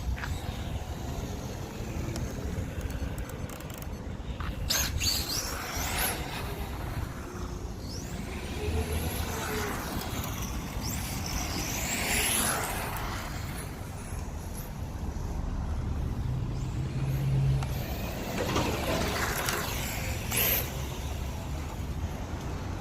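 Electric RC touring car's Novak 5.5T brushless motor whining at speed as the car makes several fast passes, the high whine sweeping up and falling away each time.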